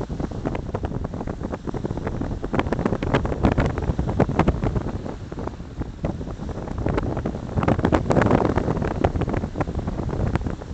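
Gusty wind buffeting the microphone, a rough, uneven rumble that grows stronger about three-quarters of the way through.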